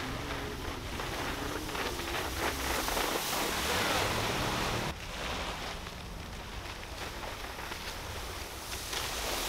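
Wind buffeting the microphone over shallow surf and water spray from a winch-towed board skimming the shallows, with an abrupt break about five seconds in.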